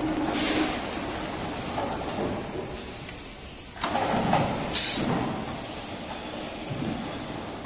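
Latex mattress rolling machine working, a steady mechanical clatter and rumble with knocks, with a short loud hiss about five seconds in.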